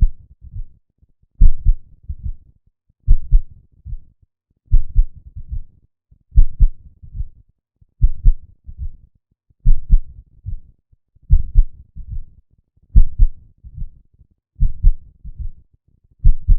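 Heart sounds, low and amplified: a strong thump followed by two or three weaker ones, the group repeating evenly about every 1.7 seconds.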